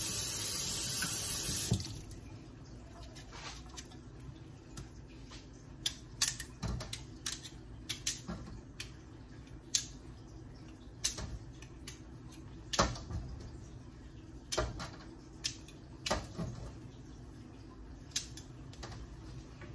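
A loud steady hiss that cuts off abruptly about two seconds in, followed by a quiet stretch of irregular sharp clicks and taps from a kitchen knife cutting a vegetable held in the hand over a pan.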